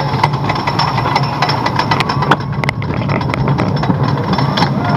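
Wooden roller coaster train climbing the chain lift hill. The lift chain runs with a steady low hum, and irregular sharp clacks come from the chain and track under the car.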